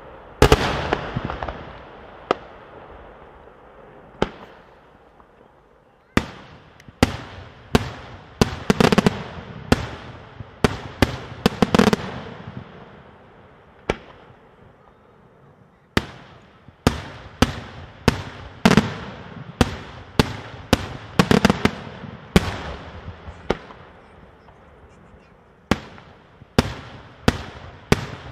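Daytime aerial fireworks: shells bursting with sharp, loud bangs, each trailing off in a rolling echo. They come irregularly, singly and in quick clusters, with a few short lulls between volleys.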